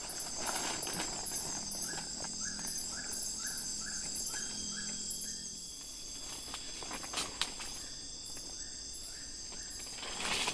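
Night insects chirping steadily in several high-pitched layers. During the first half a repeated chirping call comes about three times a second, and a few sharp knocks follow later.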